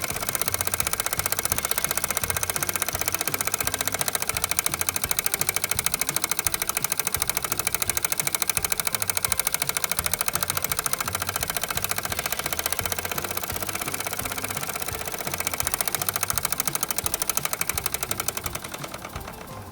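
Toy Mamod steam engine, fired by methylated spirits, running fast with a rapid, even mechanical clatter. It grows weaker over the last couple of seconds as the boiler runs out of steam.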